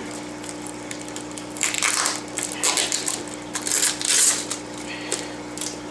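Packing tape being peeled off a plastic Tupperware tray, crackling and ripping in a run of rough bursts from about a second and a half in.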